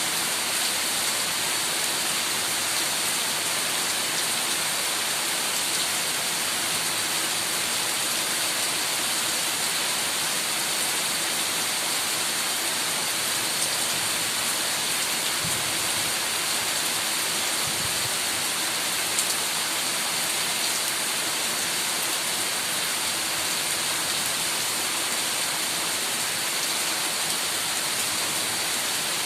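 Heavy rain falling steadily, an even, unbroken hiss of rain on surfaces.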